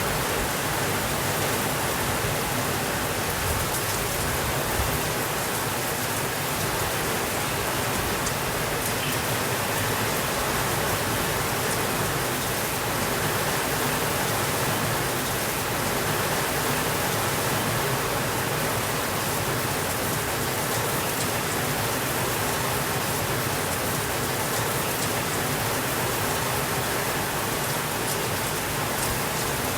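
Steady rainfall, an even hiss of rain with no thunder.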